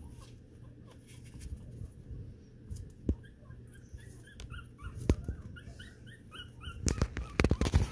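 Toy poodle puppy squeaking and whimpering in a run of short high chirps, several a second. Near the end, a quick cluster of loud knocks and rustles.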